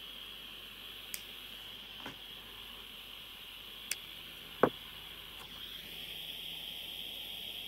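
Gas-powered soldering iron hissing steadily, getting a little louder about six seconds in, with a few light clicks of handling and one sharper tap about four and a half seconds in.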